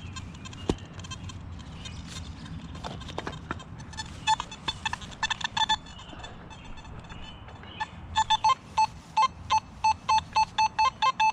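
Metal detector beeping over a target in a dig hole: a few irregular short tones, then a quick run of about three to four beeps a second from about eight seconds in, signalling metal still in the hole after a square nail was removed.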